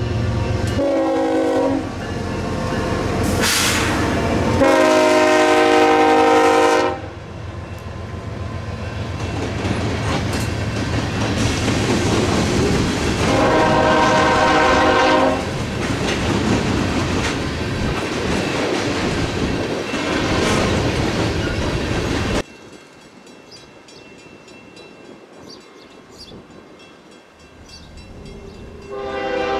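A train running on the rails, its chime horn sounding several blasts over the steady rumble and wheel clatter. Partway through, the sound drops abruptly to a much quieter background, and another horn blast starts near the end.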